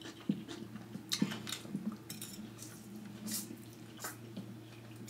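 Eating rice noodles: wet slurps and mouth smacks, with a few light clicks of a fork against a plate.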